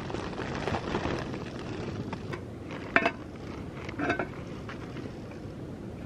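Two light clinks of kitchen utensils against a bowl or pot, about three and four seconds in, over a steady hiss.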